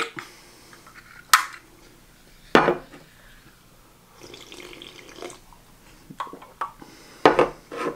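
Person drinking soda from an aluminium can: a couple of sharp clicks and knocks of the can, then sipping and swallowing about four seconds in, and light clicks from handling the can near the end.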